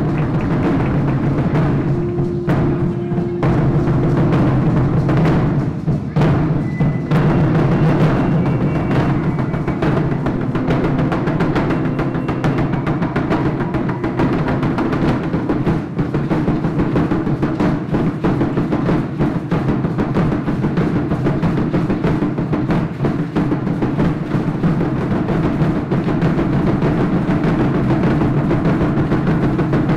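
Aztec ceremonial dance drumming: several tall upright huehuetl drums beaten in a steady rhythm.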